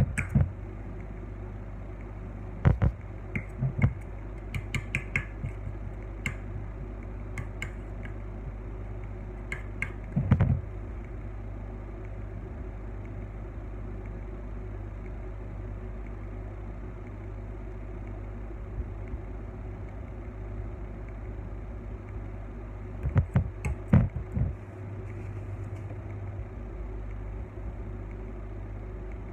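Steady low hum of kitchen equipment, with scattered knocks and taps from a cake, its board and a palette knife being handled on a turntable, including a quick cluster of knocks near the end.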